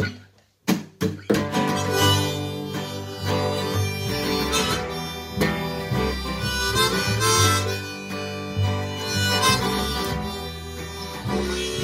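Harmonica solo over strummed acoustic guitar and plucked upright double bass. The music cuts out briefly just after the start, with a couple of sharp clicks, then carries on.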